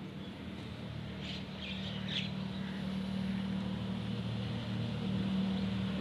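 A steady low mechanical hum, like an engine running, that grows slightly louder, with a few short high chirps between about one and two and a half seconds in.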